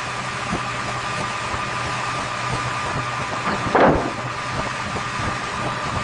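Heavy construction machine engine running steadily with a constant hum, with a brief louder swell of noise a little under four seconds in.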